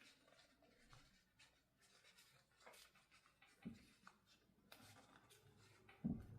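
Near silence with faint scratchy rustles and a few soft knocks: a fabric and faux-leather strap being handled and pulled through a bag's connector hole.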